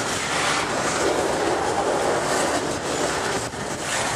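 Double-stack intermodal freight cars rolling past close by: a loud, steady rumble and rattle of steel wheels on rail, with a repeating clickety-clack as the wheel sets go by.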